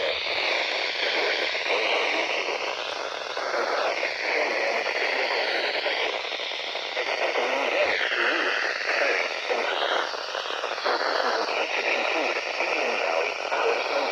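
Radio static: a steady hiss from a weakly received broadcast, with faint wavering tones drifting through it.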